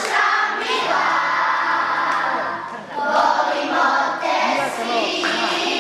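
A group of children singing a song together, with one note held for about two seconds near the start.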